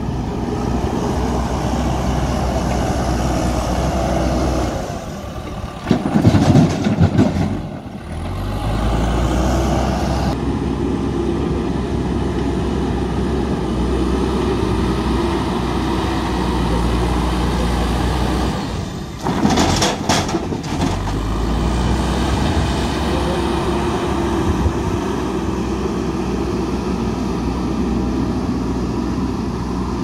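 Diesel engines of a JCB backhoe loader and a tractor running steadily. Two loud spells of clatter, about six seconds in and again around nineteen seconds, each a second or two long, as loads of stone are tipped into the tractor's trolley.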